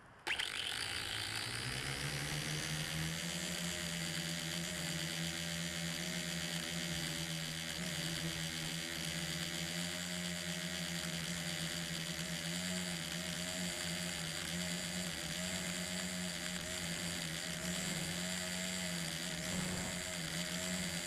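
Small quadcopter drone's electric motors and propellers spin up with a quick rising whine at takeoff, then hold a steady buzzing whine that wavers slightly as the drone climbs. Heard close up from the camera mounted on the drone itself.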